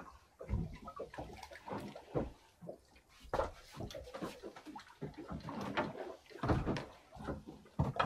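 Water slapping against the hull of a small boat on choppy sea, with irregular knocks and thumps on the boat as a hooked fish is swung aboard and lands on the deck.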